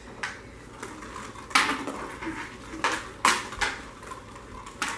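Hockey sticks clacking against a ball or puck and the hard floor, five sharp, irregularly spaced strikes as shots are taken.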